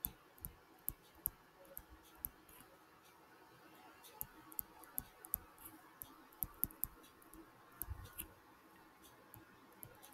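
Faint, irregular light clicks of a stylus tapping on a tablet screen while writing by hand, coming in short runs with pauses between them.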